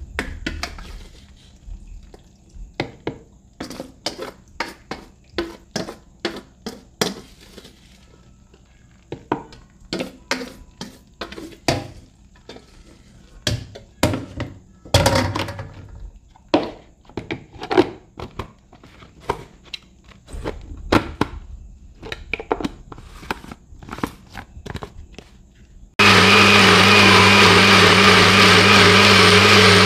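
Irregular knocks and clicks of kitchen work, one or two a second. Then, near the end, a blender motor switches on suddenly and runs loud and steady.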